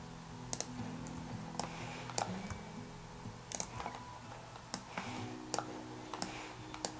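Computer mouse and laptop keys clicking: irregular single clicks, some in quick pairs, roughly one every half second to a second.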